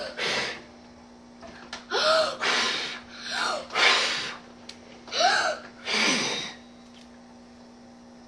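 A four-year-old child blowing hard at birthday candles in about four rounds, each a quick gasping breath in followed by a puff of blowing. A faint steady hum runs underneath.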